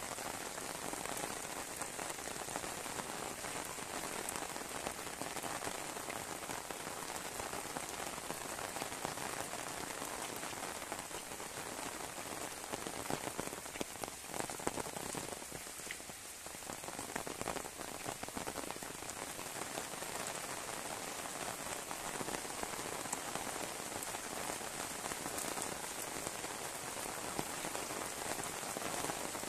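Heavy rain falling steadily on a concrete lane and the grass beside it, easing slightly for a couple of seconds midway.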